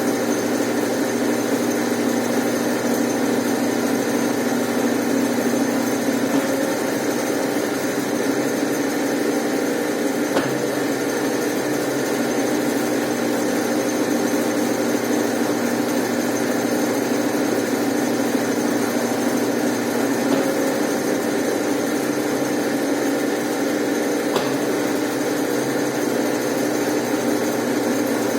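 Brastemp Ative 11 kg top-loading washing machine (BWL11AR) running: a steady motor hum with a thin high whine, unchanging throughout, with a faint click about ten seconds in and another near the end.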